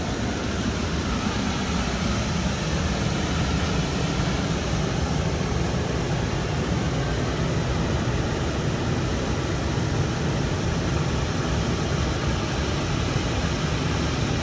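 Waterfall and rushing river water making a steady, even roar.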